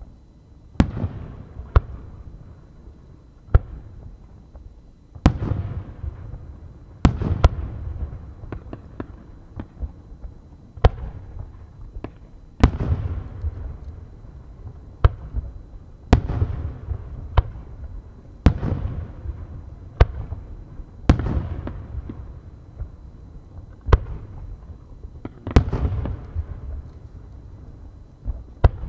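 Aerial firework shells bursting in quick succession: over a dozen sharp bangs, one every one to two seconds, each followed by a rolling echo and low rumble.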